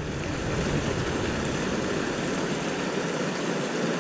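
Steady rush of water pouring over a small weir.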